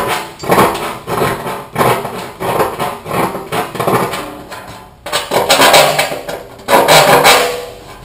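Hand file rasping over the cut edge of a sheet-metal car fender, breaking a sharp 90-degree corner: short strokes about one every two-thirds of a second, then two longer, louder strokes near the end.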